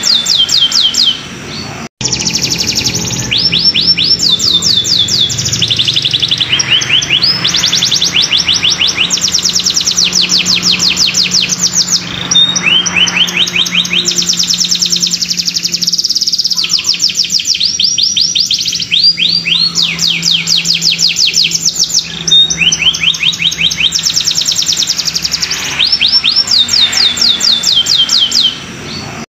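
Domestic canary singing in fast rolling trills: phrase after phrase of rapid high notes, each note falling in pitch, with barely a break between phrases.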